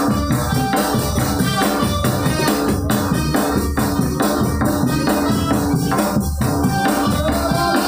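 Music for an angguk dance: a fast, steady percussion beat with jingling shaken percussion over held melodic notes.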